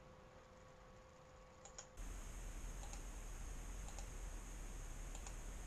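Faint, scattered clicks from working at a computer, over a steady room hiss and low hum; the hiss and hum step up about two seconds in.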